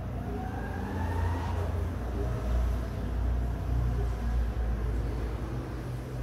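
Low rumble of road traffic, with an engine rising in pitch during the first couple of seconds.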